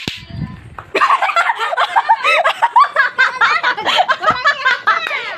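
A few sharp clacks of lato-lato clacker balls at the start, then loud, high-pitched laughing that breaks out about a second in and keeps on without a pause.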